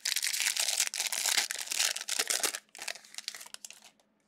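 Plastic wrapper of a Donruss basketball trading-card pack crinkling as it is torn open and handled. There is a dense crackle for about two and a half seconds, then a few scattered crinkles.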